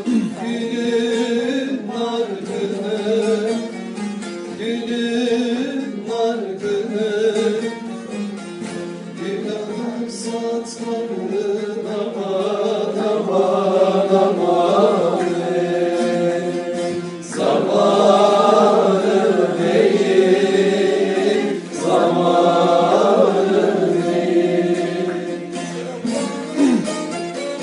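A man singing a Turkish folk song (türkü) in a wavering, ornamented voice, with instrumental accompaniment; the singing grows louder about halfway through.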